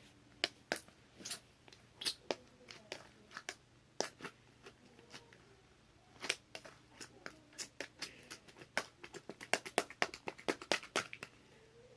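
Slime being pushed by hand through a funnel into a balloon, making irregular sharp wet clicks and pops that come quickly in a dense run near the end.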